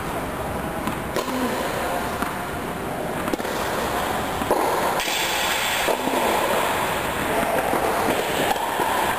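Steady background noise in an indoor tennis hall, with a few sharp knocks, about a second and three and a half seconds in, of a tennis ball bounced on the court as the player gets ready to serve.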